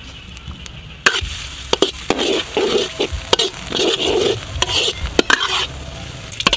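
Minced aromatics sizzling in hot oil in a large metal wok, stirred and scraped with a metal spatula. The spatula starts about a second in and clacks sharply against the wok many times.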